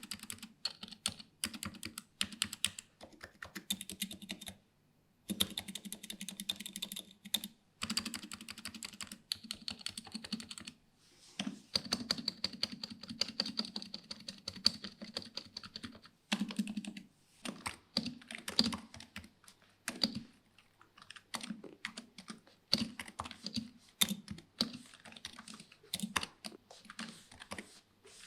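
Razer Huntsman V2 keyboard with linear optical red switches being typed on: fast runs of key clicks in bursts, broken by a few short pauses, with a specially dense flurry of keystrokes around the middle.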